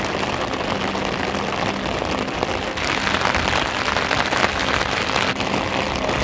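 Steady heavy rain falling on a flat concrete rooftop, a dense, even hiss of drops that swells a little in the middle.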